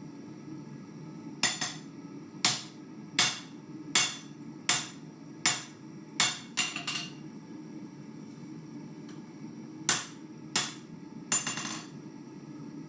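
Hand hammer striking hot steel on an anvil, forging a knife blank from an old farrier's rasp. About eight ringing blows a little under a second apart, a pause of about three seconds, then a few more near the end.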